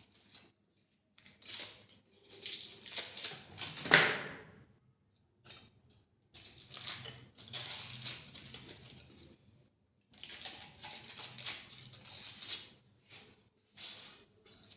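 Eating sounds: chewing and handling of food in short, irregular noisy bursts, with one loud, sharp sound about four seconds in.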